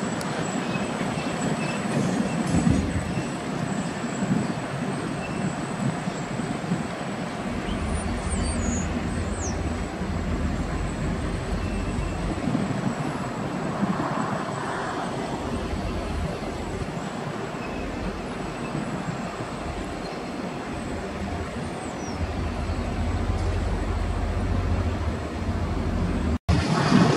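Freight train of container flat wagons rolling slowly along the track, a steady rumble and rattle of wheels and couplings, with the low rumble swelling twice.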